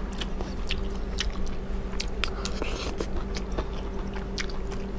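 A person chewing a mouthful of food close to a clip-on microphone: a scatter of small wet mouth clicks over a faint steady hum.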